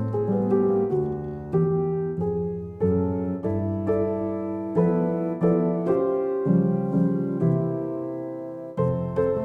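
Background piano music: a gentle melody over chords, with notes struck about every half second to second and fading between strikes.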